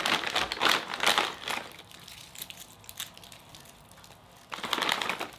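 Plastic candy bag crinkling as it is handled, dense crackling for the first second and a half, then faint rustling, with another short burst of crinkling near the end.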